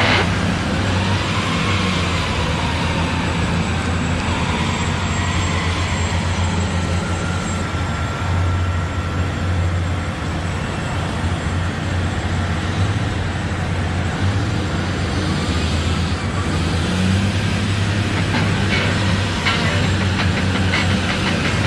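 Steady low rumble of a heavy vehicle engine running, with a noisy hiss over it.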